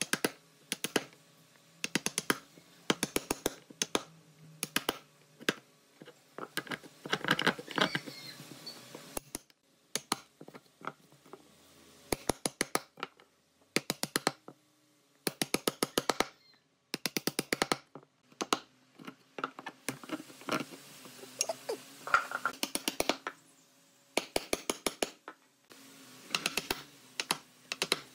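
Wooden mallet striking a chisel handle in quick runs of sharp taps, with short pauses between runs, as the chisel chops square mortises into a wooden board.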